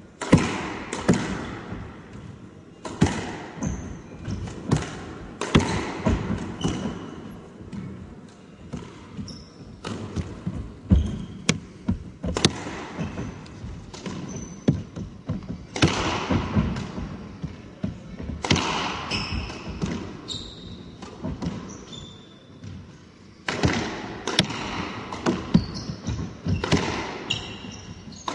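A squash rally: the ball is struck by rackets and smacks off the front wall and floor in a quick, irregular run of sharp hits, echoing in the court. Short high squeaks of court shoes on the wooden floor come between the hits.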